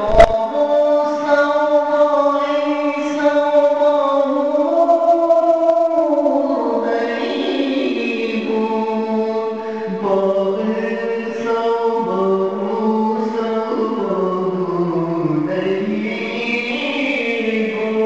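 Devotional vocal music: sung, chant-like lines held in long notes that slide up and down between pitches, with a sharp click at the very start.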